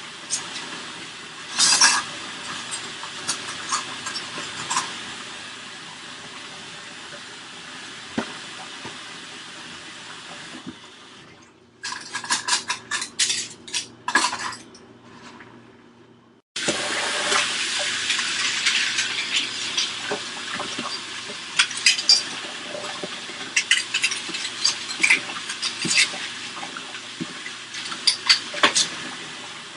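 Kitchen sounds: metal pots, dishes and utensils clinking over a steady watery hiss. The sound is cut together from several takes: about 11 seconds in it drops to a quieter stretch with a quick run of sharp clinks, and the dense hiss and clatter return suddenly about 16 seconds in.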